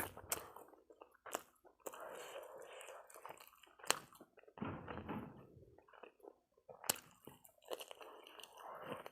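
Close-up mouth sounds of eating spicy fried chicken wings: chewing, with a few sharp crunchy bites now and then.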